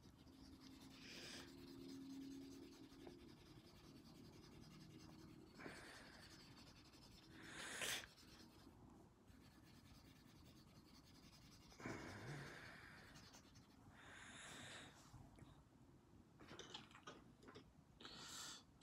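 Faint, intermittent rubbing strokes of a cotton swab blending graphite pencil shading on paper.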